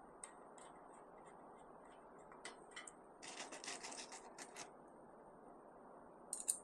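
Faint clicks and short scratchy scrapes of a hand Phillips screwdriver turning a screw into an electric smoker. A quick run of scrapes comes about three seconds in, and two sharper clicks come near the end.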